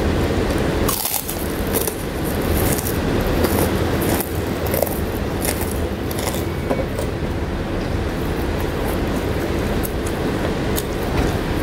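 Crisp cracker being bitten, chewed and crumbled by hand: a run of sharp crackly crunches over the first six seconds and a few more near the end, over a steady low rumbling background noise.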